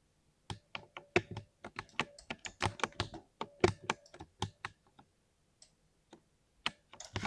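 Typing on a mechanical keyboard with thocky keystrokes: a quick run of keypresses starting about half a second in, then a few scattered single keys and a short flurry near the end.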